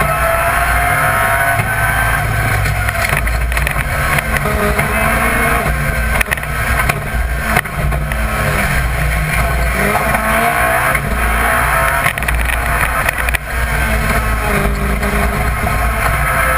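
BMW Compact rally car's engine heard from inside the cabin at full stage pace, revving up and down through gear changes, with a few brief dips in level in the middle stretch.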